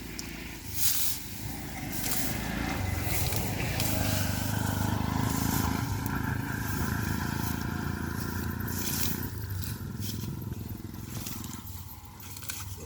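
A motor engine hum that swells about two seconds in, holds steady, then fades after about nine seconds, with scraping and rustling near the start and end.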